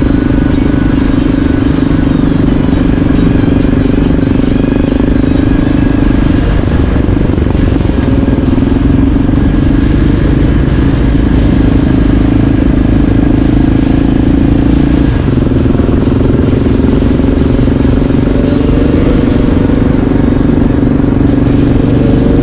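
Motorcycle engine running at a steady cruise, heard from on the bike with wind rush. Its pitch steps down slightly twice, about six and about fifteen seconds in, and rises near the end.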